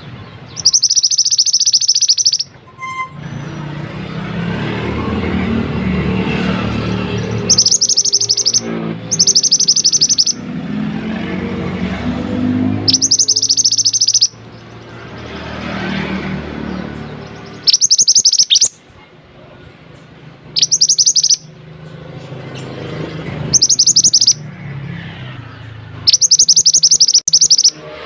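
Minivet (sepah gunung) calling: eight loud, high-pitched rapid trills, each one to two seconds long, at irregular gaps. A low background rumble fills the gaps between them.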